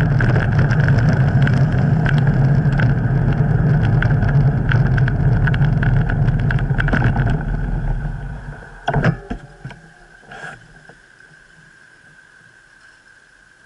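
Wind buffeting the microphone and road rumble from a moving bicycle, with traffic alongside, fading out about eight seconds in as the bike slows to a stop. A few sharp clicks follow, then quiet street background with a faint steady high tone.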